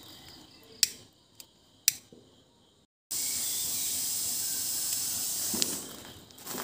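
A lighter flame held to a paper packet of firecracker powder: a few sharp clicks, then a steady hiss that lasts about three seconds and fades out.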